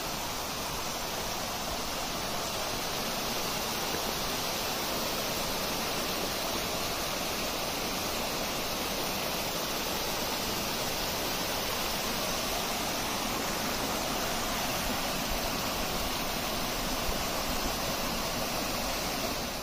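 Small woodland waterfall cascading over moss-covered rock ledges: a steady rush and splash of falling water.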